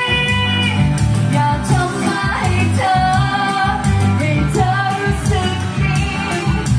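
Woman singing a pop song live into a microphone, backed by a band with bass, drums and guitar through the stage PA.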